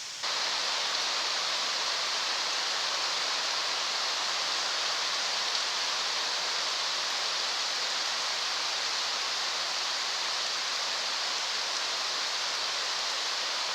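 Steady, even hiss of rushing water, heavy rain or the river, starting abruptly and holding at one level throughout.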